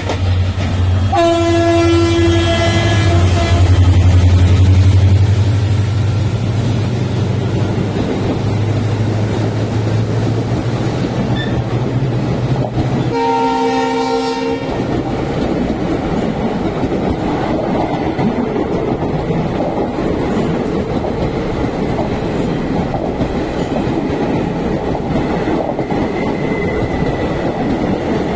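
WCAM 3 electric locomotive passing at speed, with a low hum and its horn blowing for a couple of seconds near the start. The coaches then rush past with a steady clatter of wheels on rail. A second, shorter horn blast comes about halfway through.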